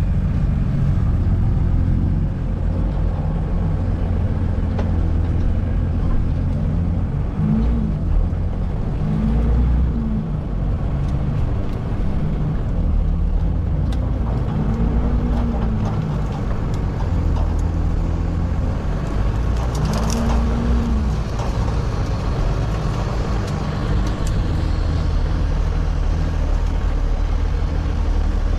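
Hägglunds Bv206 tracked all-terrain carrier driving over rough ground, heard from inside the cab: a loud, steady low engine drone with the revs rising and falling a few times. A few short knocks come about two-thirds of the way through.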